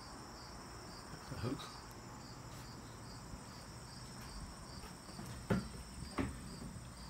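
Crickets trilling steadily in a high-pitched chorus, with a regular pulse about twice a second. Two sharp knocks sound a little after halfway through.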